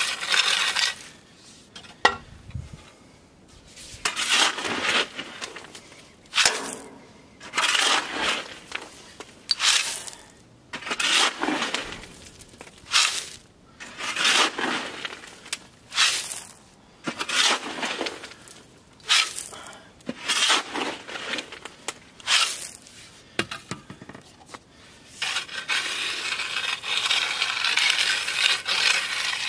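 A rake scraping and crunching through crushed gravel in short strokes about every second or so, the gravel being spread to level a pad. Near the end the strokes run together into a steady scrape.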